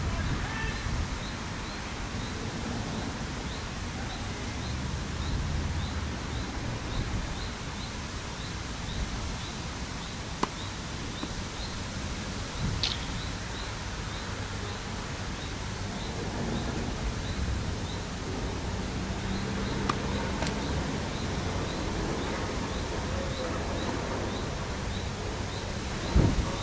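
Steady wind noise on the microphone outdoors, with a high chirp repeating about twice a second through the first half and a few faint clicks. Near the end a tennis racket strikes a ball with a sharp hit.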